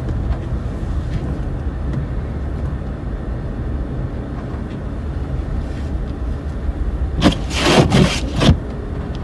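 Steady low rumble with no words over it, broken near the end by four short rustling noises in quick succession.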